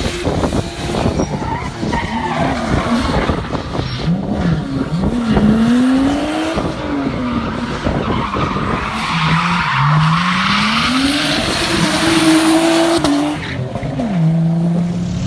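A car drifting: its engine revs rise and fall over and over as the throttle is worked, with tyre squeal over it that is loudest in the second half, before the engine settles to a steadier note near the end.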